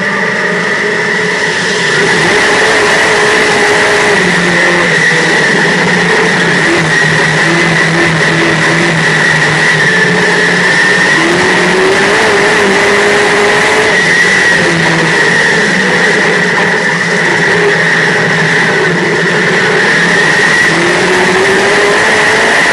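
Dirt modified race car's engine heard from inside the cockpit, running hard at racing speed, its pitch rising and falling as the throttle comes on and off. It gets louder about two seconds in.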